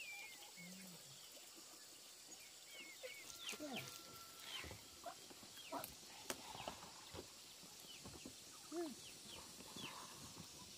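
Faint farmyard sounds: many short bird chirps, each dropping quickly in pitch, with scattered light clicks and taps, and a short low call from a farm bird about nine seconds in.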